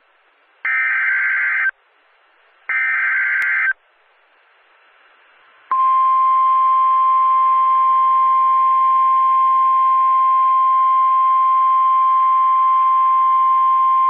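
Emergency Alert System SAME header: two bursts of buzzing digital data tones, about a second each and two seconds apart, encoding a flash flood warning. A little under six seconds in, the NOAA Weather Radio 1050 Hz attention tone starts, a single steady alarm tone announcing that a warning message follows.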